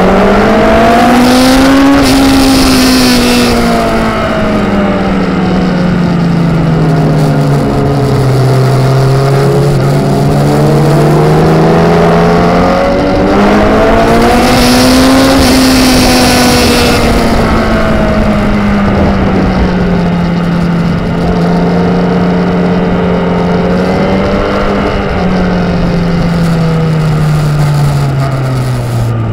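Racing motorcycle's engine heard from its own onboard camera, working hard on a circuit. Its pitch climbs to a peak and falls away twice as the bike accelerates and then slows. It holds steady for a while before dropping near the end. Wind rushes over the microphone at the fastest points.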